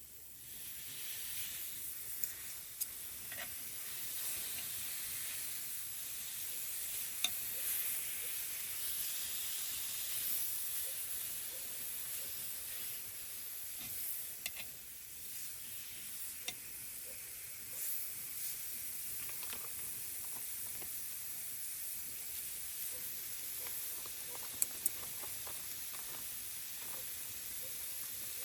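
Food sizzling in a hot pan, a steady hiss that starts suddenly, with a few light clicks of a utensil.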